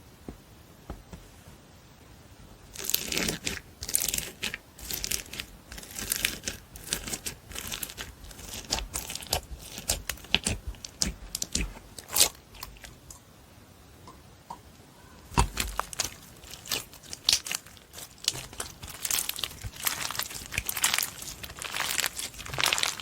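Slime being squeezed and stretched by hand, a dense run of sharp crackling clicks and pops that starts about three seconds in, eases off briefly a little past the middle, then picks up again.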